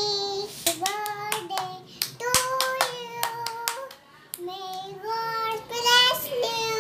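A young girl singing in long held notes while clapping her hands several times along with the song.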